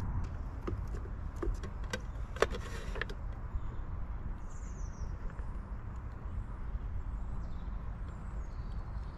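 Garden feeder sounds: a run of sharp clicks and taps over the first three seconds, such as a squirrel makes working at a feeder, then faint short high bird chirps, over a steady low background rumble.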